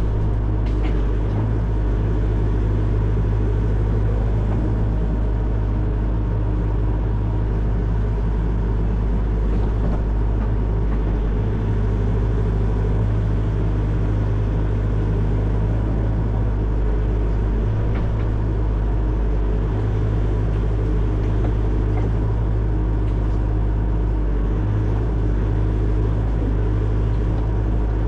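Excavator's diesel engine running steadily, a low, even rumble.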